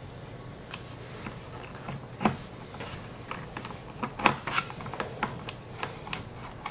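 Hand screwdriver turning small screws into the foam tail of an RC jet: irregular light clicks and creaks with handling rubs, the sharpest clicks about two seconds in and again around four seconds in.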